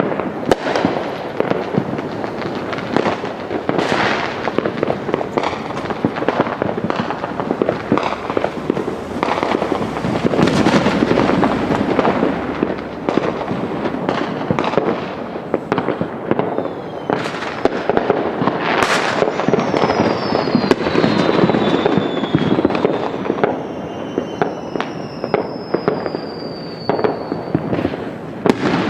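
Consumer fireworks going off all around without a break: a dense crackle of firecrackers and pops with louder bangs now and then. Several whistles falling in pitch come in the second half.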